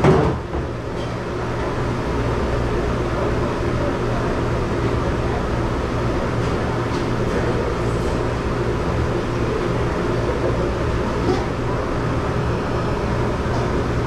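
Steady drone of commercial dish-room machinery, with a brief knock right at the start.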